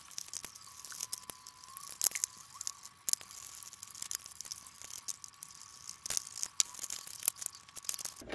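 Screwdriver undoing the screws of a Samsung ST-K40 radio cassette player's plastic back cover, sped up: a quick run of sharp clicks and scrapes over a hiss and a faint steady tone.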